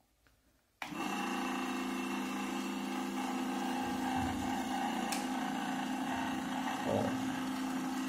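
Ventisol table fan switched on about a second in, its motor running with a steady hum and a sharp click about five seconds in. The fan makes noise without blowing air because its blade is loose on the shaft: the piece that locks the blade is missing.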